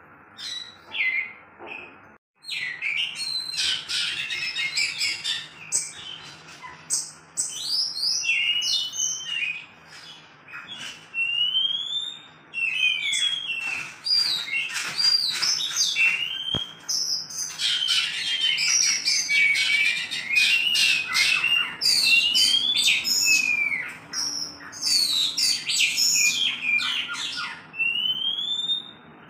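Black-form oriental magpie-robin (kacer wulung) singing a varied song of rising whistled slurs mixed with harsh, scratchy chattering notes, delivered in quick runs with short pauses between them.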